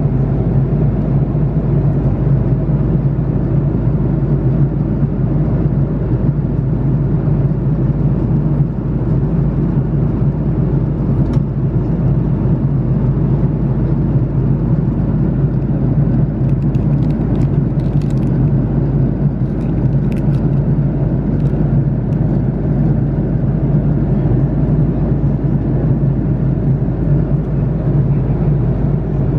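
Steady low drone of an Airbus A330-300 cabin in flight, heard from an economy seat, with a few faint light clicks a little past halfway through.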